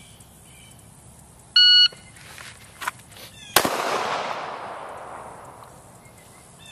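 An electronic shot timer beeps once. About two seconds later a single 9mm shot from a Glock 19 MOS pistol rings out, echoing away over about two seconds, with a sharp click just before it.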